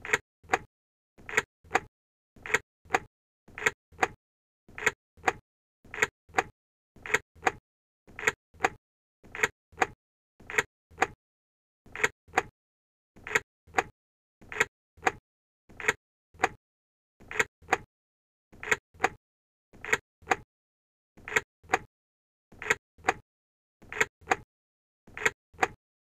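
A car key being inserted into an ignition lock: short, sharp metallic clicks in groups of two or three, repeated about once a second.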